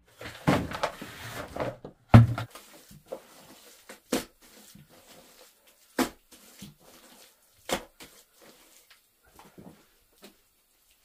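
Hands working a damp clay-and-earth mix in a plastic tub: scraping and rustling handling noise, a heavy thud about two seconds in, then several sharp knocks or slaps spaced a second or two apart.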